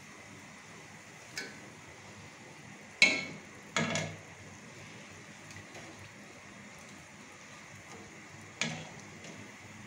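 A metal utensil knocking against a stainless-steel pot a few times as fried chebakia are turned in honey, the loudest knock about three seconds in and briefly ringing. A steady low sizzle of oil frying runs underneath.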